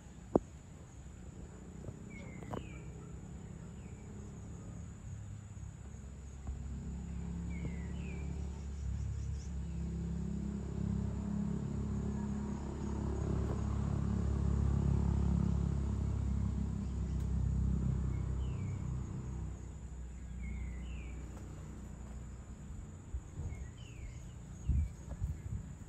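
A distant engine rumble swells and fades over about fifteen seconds as something passes by. Short bird chirps come now and then, over a steady high insect drone.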